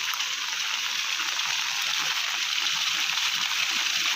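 Steady rush of rainwater pouring out of a pipe, growing slightly louder toward the end.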